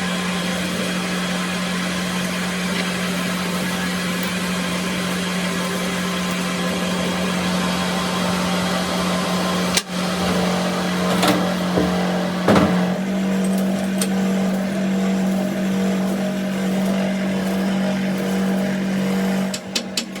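A machine or engine running steadily with an even hum, stepping up slightly in pitch about two-thirds of the way through. A few knocks come shortly after the middle.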